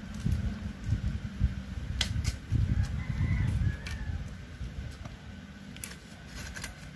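Close chewing of crispy breaded fried chicken, with low mouth sounds and a few sharp crunches. A rooster crows in the background about three seconds in.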